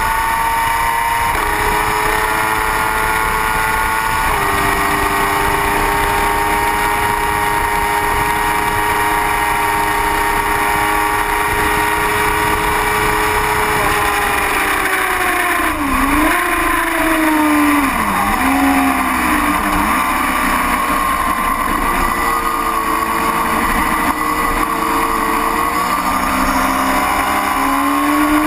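Racing motorcycle's engine running at high, steady revs over heavy wind noise, then the revs dip and recover sharply several times about halfway through as the bike slows off the banking, and climb again near the end as it accelerates.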